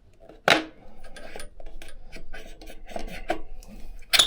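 Front engine cover of a BMW R1100GS boxer being wiggled loose by hand, scraping and rubbing against the engine with light clicks and two sharp knocks, one about half a second in and one near the end.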